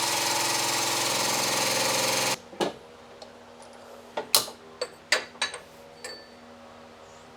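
Press running with a loud, steady mechanical buzz while pressing in a new suspension bushing; it cuts off about two seconds in. Then come a series of sharp metal clanks and taps, the loudest a little past the middle.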